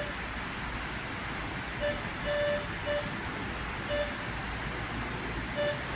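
Hand-keyed Morse code tone sending slow, irregular short and long beeps of one steady pitch, single dots with a few longer dashes, over a steady hiss. It is spelling out the practice message "rescue our crew" word by word.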